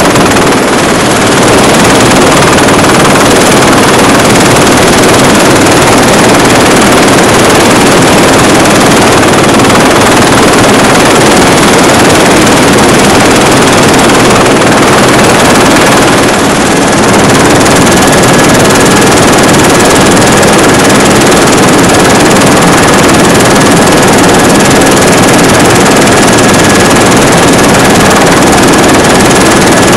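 Helicopter engine and rotor noise heard from on board, loud and steady, with a faint high whine joining about halfway through.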